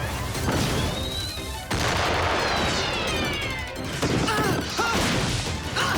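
Cartoon battle sound effects: a sudden blast-like crash with falling swooshes, over background music.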